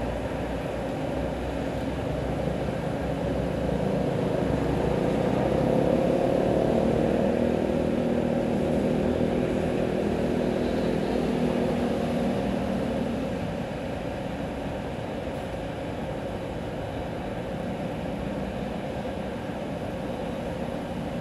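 Steady hiss of rain and tyres on a wet city street below. An engine hum swells from about four seconds in and fades by about thirteen seconds as a vehicle passes.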